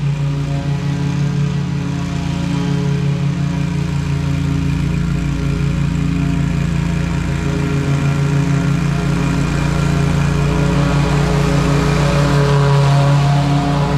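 Engine of a 32-inch Toro GrandStand HDM stand-on mower running steadily while mowing, growing louder as the mower comes closer.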